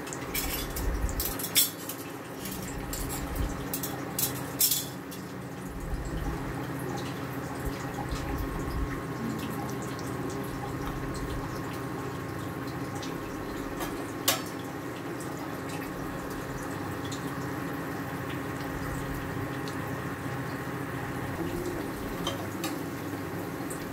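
Breaded chicken cutlets deep-frying in hot oil, a steady sizzle, with a metal spoon clinking against the pan several times in the first five seconds and once more about fourteen seconds in.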